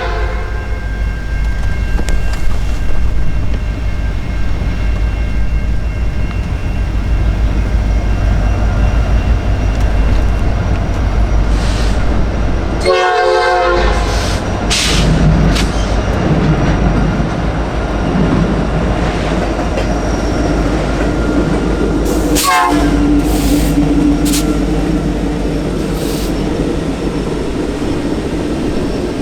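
A train running past, its wheels and engines rumbling steadily, with short horn blasts about halfway through and again about two-thirds of the way in.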